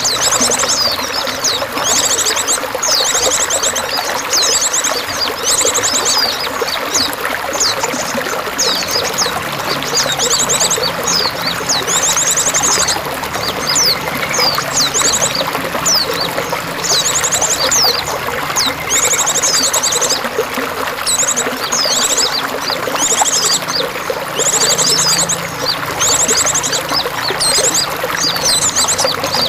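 Water trickling and pouring steadily, with a small songbird singing over it in repeated fast, high trills and quick chirps, a burst every second or two.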